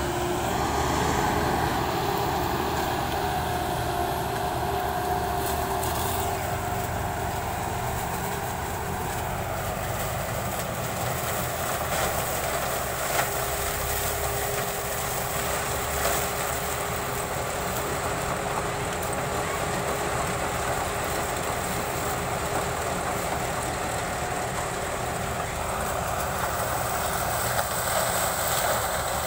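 Sugarcane harvester running as it cuts through standing cane: steady engine and machinery noise with a faint whine, and an occasional sharp knock.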